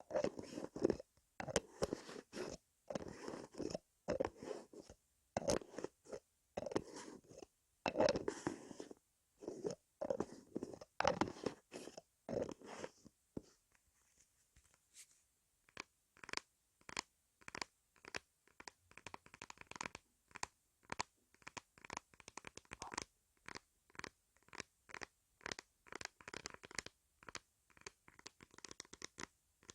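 ASMR ear massage: hands rubbing and squeezing right on the microphone in crunchy, scratchy strokes about twice a second, changing about halfway to quicker, lighter taps and flicks.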